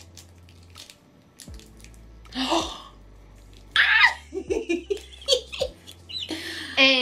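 Faint clicks and a short rustle of a small box being opened, then two women break into loud, excited laughter and giggling a little over halfway through.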